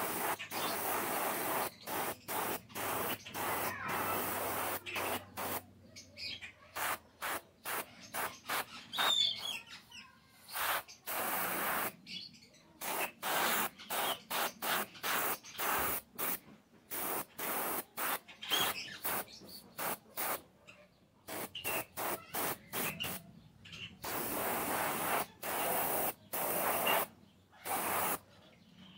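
Paint being sprayed in many short hissing bursts that start and stop abruptly, some in quick runs of several a second and a few held for a second or two.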